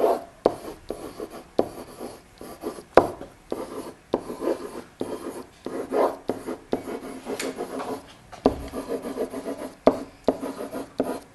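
Pen writing by hand on an interactive whiteboard: an irregular run of scratchy rubbing strokes, with a sharp tap now and then as the pen touches down.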